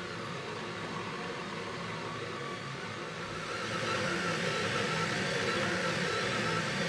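Monoprice Mini Delta 3D printer running a print: its stepper motors sing in quickly shifting tones over a steady whir, growing louder about four seconds in.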